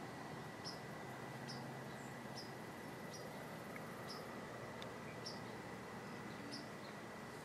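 Quiet field ambience with a short, high chirp repeating about once a second from a small animal, insect or bird, over a faint steady high tone.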